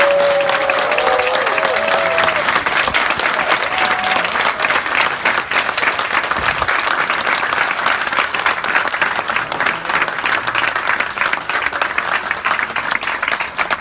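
Audience applauding steadily, with a few voices calling out in the first couple of seconds.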